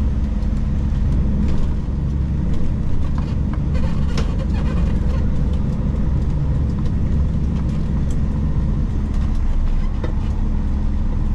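Kenworth K200 cabover's Cummins diesel engine heard from inside the cab, running steadily as the truck pulls away at low speed, with a few light clicks about four seconds in.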